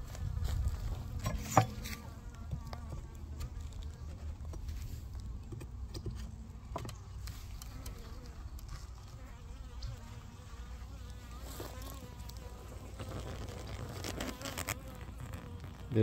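Honeybees buzzing in an open Layens hive: a low, steady hum, with a few light clicks and knocks, the sharpest about a second and a half in.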